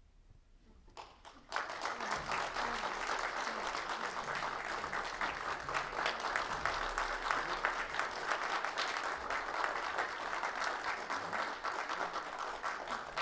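A small audience applauding. After about a second and a half of quiet, the clapping starts suddenly and carries on steadily.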